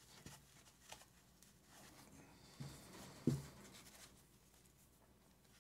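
Faint rustling and scratching as string is tied around a foam-wrapped mini air pump, with a few light taps and a louder knock about three seconds in.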